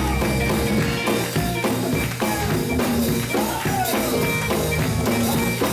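Gospel church music: a live band with drums playing, with a voice calling out over it.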